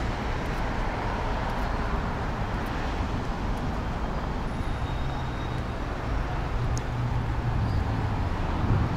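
City road traffic passing: a steady hum of car engines and tyres, with a deeper engine drone swelling from about halfway through.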